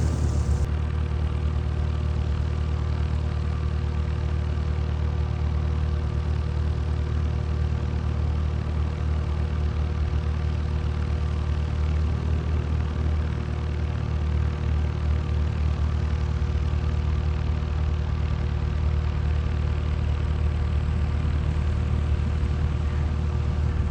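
An engine running steadily at one speed: a low hum with a few steady tones above it, unchanging throughout.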